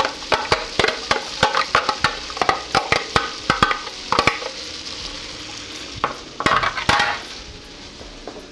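Diced red onion hitting hot, foaming melted butter in a stainless steel pan and frying: dense sizzling and crackling for the first few seconds that thins out, with a few louder bursts of crackles around six to seven seconds in, then settles into a steady sizzle.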